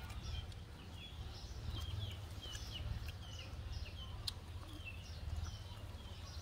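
Small birds chirping: short, high, falling chirps repeating a few times a second over a steady low rumble, with one sharp click about four seconds in.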